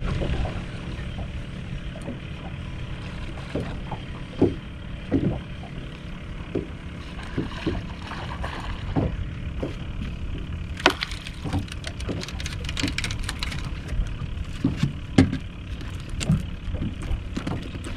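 A hooked speckled trout splashing at the surface beside the boat as it is reeled in, with a cluster of sharp splashes a little past halfway, over a steady low rumble of wind and water and scattered small knocks of the rod and reel.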